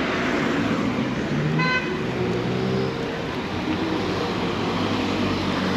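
Street traffic: car engines running past, with a short pitched horn beep about one and a half seconds in.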